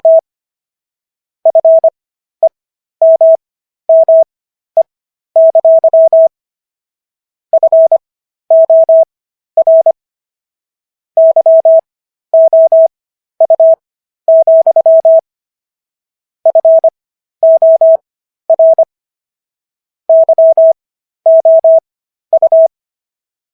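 Morse code practice tone: a single steady-pitched beep keyed on and off in dots and dashes. The characters are sent at 25 WPM with Farnsworth spacing, so the pauses between letters and words are stretched to an effective 15 WPM.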